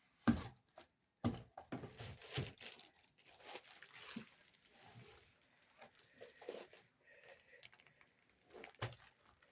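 Plastic packaging crinkling and rustling as it is pulled and handled, in irregular bursts with the sharpest rustle a quarter second in and a busy stretch between about one and two and a half seconds.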